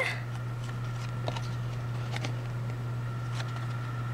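Steady low hum with a few faint, light clicks as small adhesive rhinestone studs are handled and pressed onto a doll's fabric tank top.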